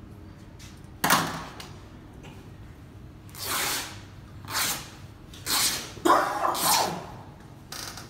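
Large sheet of white cotton shroud cloth rustling and swishing as it is handled, lifted and shaken out by hand. It comes in about six bursts, the first and sharpest about a second in.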